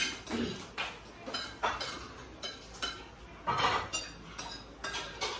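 Spoons and forks clinking and scraping on ceramic plates during a meal: a string of short, irregular clinks, with one longer, louder clatter a little past halfway.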